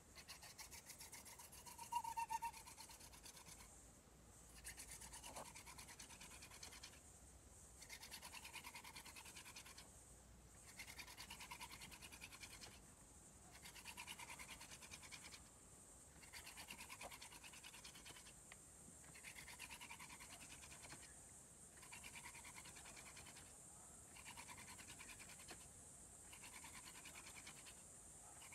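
Fire-making hand drill: a wooden spindle spun between the palms against a wooden hearth board, rubbing in runs of about two seconds with short breaks every two and a half to three seconds as the hands go back to the top of the stick. A brief louder squeak comes about two seconds in.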